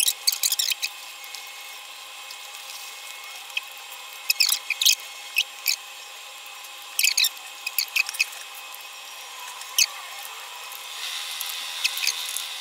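Food packaging crinkling in short bursts of crackles and clicks as it is handled, over a faint steady hum.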